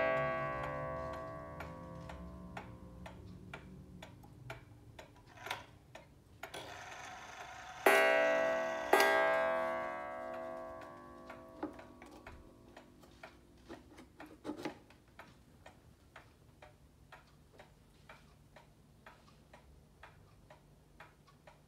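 Antique Meiji pendulum wall clock ticking steadily, then striking the hour twice, about a second apart, each stroke ringing on and fading over several seconds; a ring from a stroke just before is dying away at the start.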